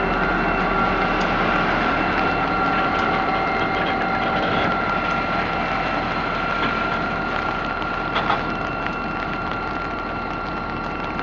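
EMD diesel-electric locomotives of a CSX local rolling slowly past close by, engines running steadily with a rumble under a steady high whine. A short squeal stands out about eight seconds in.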